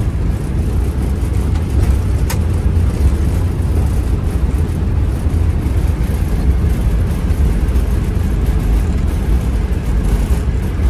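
Steady low rumble in a Boeing 777's cockpit as the airliner rolls out on the runway after touchdown: wheel and engine noise, with a single faint click about two seconds in.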